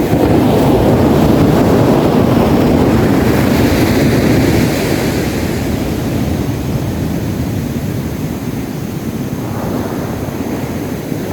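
Sea waves breaking and washing up the beach, with wind rumbling on the microphone. The surf is loudest over the first half, dies down, and builds again near the end.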